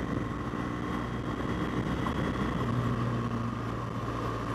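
BMW R1200GS flat-twin engine running at a steady cruise, heard from the rider's seat under a steady rush of wind and road noise.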